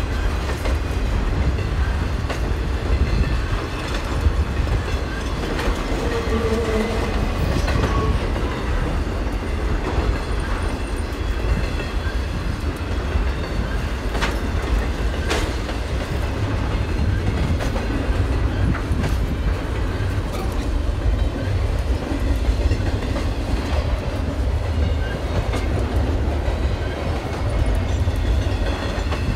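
Double-stack intermodal container train rolling past, its well cars' wheels clacking over the rail joints over a steady low rumble, with a couple of sharper clanks about halfway through.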